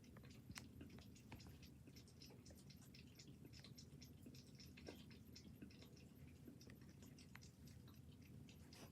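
A cat lapping water from a toilet bowl: a faint, quick run of small wet ticks and splashes of its tongue at the water, several a second.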